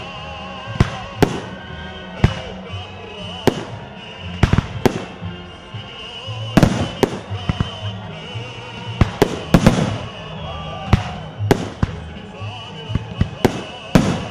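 Fireworks salute shells bursting overhead in a long run of sharp bangs, some single and some in quick clusters, at irregular intervals. Music plays underneath.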